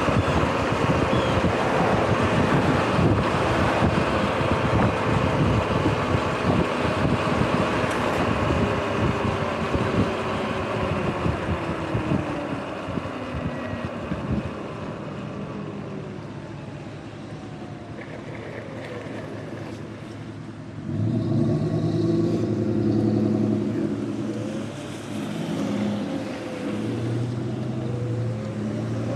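Wind buffeting the microphone and tyres hissing on the wet road as a Sur-Ron X electric dirt bike rides through rain, with a thin motor whine slowly falling in pitch as the bike slows. About two-thirds of the way in, the rushing noise has died down and a louder low hum with shifting tones suddenly comes in.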